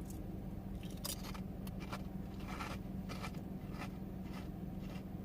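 Scattered soft crackles and crunches from eating chips, over a steady low hum.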